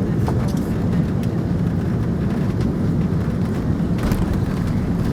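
Airbus A330-300 airliner giving a steady low rumble, with a few faint clicks over it.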